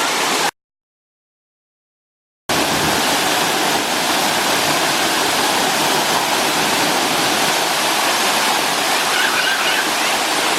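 Steady, loud rush of a waterfall and mountain stream. About half a second in it cuts to dead silence for about two seconds, then the rushing water comes back at the same level.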